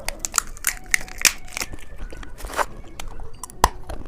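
A lollipop and its plastic wrapper being handled and eaten: irregular sharp crinkles, crackles and crunches, with one loud snap near the end.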